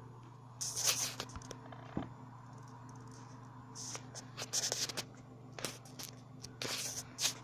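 Short scratchy rustles close to the microphone, about six of them at uneven intervals, over a steady low electrical hum.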